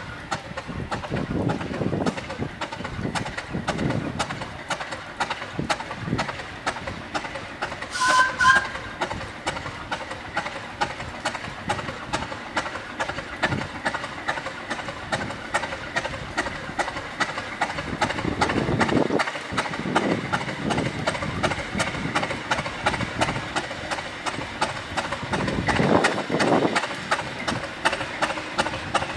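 Class 50 diesel locomotive's English Electric 16CSVT V16 engine idling with a steady rapid clatter just after a cold start, its note swelling several times. A brief high two-note sound about eight seconds in.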